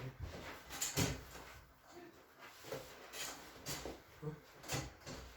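A patient shifting and rolling over on a padded treatment table: a few soft knocks and rustles, the loudest about a second in, then several more spread over the last couple of seconds.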